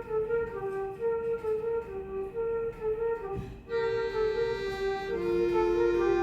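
Bayan (Russian button accordion) playing a melody of steady held notes over sustained chords, with a short break about three and a half seconds in.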